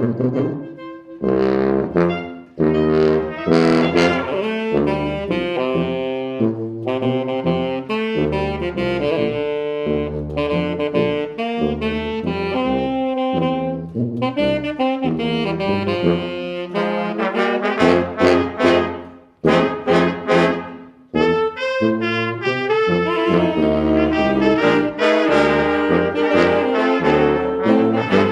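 A school instrumental ensemble playing jazz-style music led by brass and saxophones, trombone prominent, with drum hits punctuating the melody and a couple of brief breaks in the sound a little past the middle.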